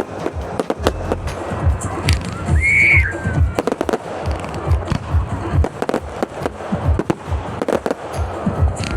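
Fireworks display: a rapid, continuous run of bangs and crackles, with a brief whistle rising and falling about two and a half seconds in.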